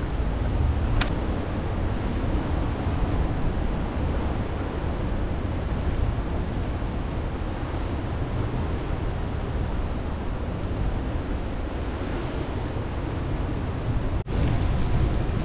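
Steady rushing noise of ocean surf and wind, with a sharp click about a second in and a momentary dropout near the end.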